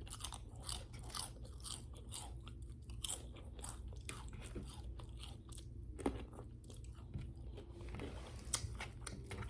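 Close-miked chewing of crunchy food: a steady run of crisp crunches and small mouth clicks.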